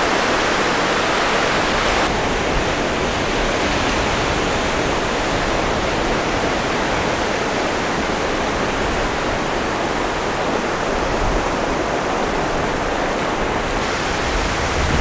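Ocean surf washing onto a sandy beach, a steady wash of noise that shifts slightly in tone about two seconds in.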